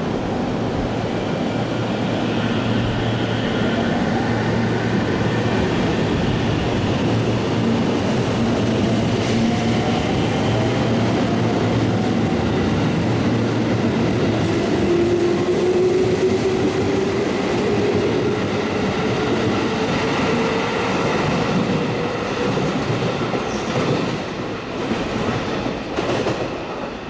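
JR Central 313 series and 211 series electric multiple unit pulling out of a station and accelerating past, its traction motors whining and rising in pitch as it gathers speed over the running rumble of the train. The sound falls away near the end as the train draws off.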